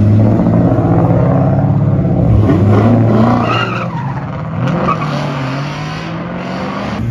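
Dodge Challenger's engine at high revs as it launches hard with its tires spinning and squealing; the sound eases off about halfway through as the car pulls away.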